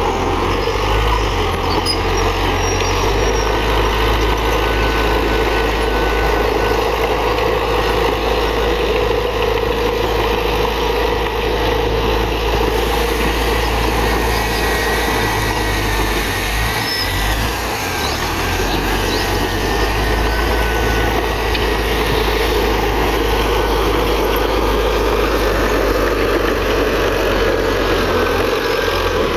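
Komatsu D31PX crawler bulldozer's diesel engine running steadily under load while working soil, with faint high squeals at times.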